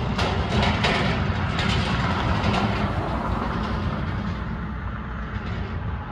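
Heavy cargo truck's diesel engine rumbling with a clattering rattle as it drives away down the grade, the sound fading as it pulls into the distance.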